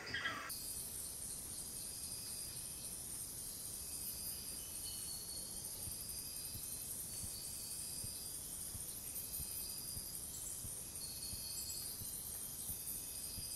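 Rainforest insect chorus: a steady, high-pitched shrill of insects with fine, fast pulsing, and a few faint short tones over it.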